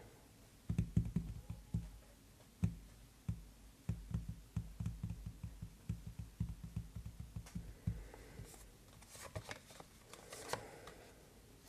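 Faint handling of tarot cards: a quick run of soft low thumps and taps for most of the stretch, then a few brief light rustles near the end.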